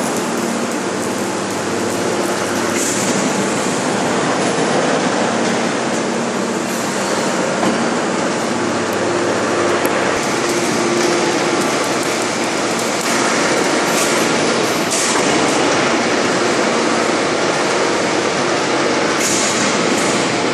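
A 50 MN four-column hydraulic forging press squeezing a red-hot steel billet for a large shaft: a loud, steady mechanical rush with a low hum, broken a few times by short sharp sounds.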